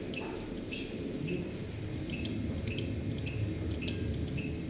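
Short high electronic beeps, each with a click, from a video matrix switcher's front-panel keypad as input and output buttons are pressed one after another, about two a second.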